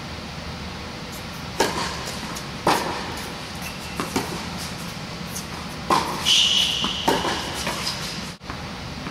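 Tennis ball strikes in a rally: several sharp racket hits and bounces echoing in a large indoor court hall, with a brief high squeak, like a shoe on the court surface, a little over two-thirds of the way in.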